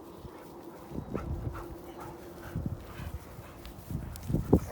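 Dogs rough-playing over a tug rope: scuffling and small dog noises, with one louder short bark or growl near the end.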